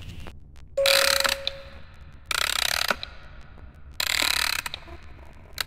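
Rasping, ratchet-like mechanical noise in four bursts of about half a second each, repeating about every second and a half. A short steady tone sounds under the first burst.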